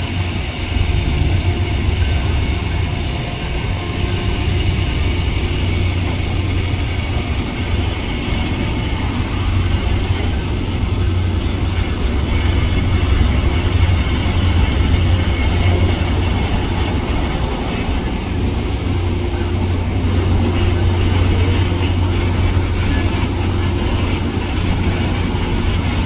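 Steady low rumble of a Union Pacific diesel locomotive's engine running.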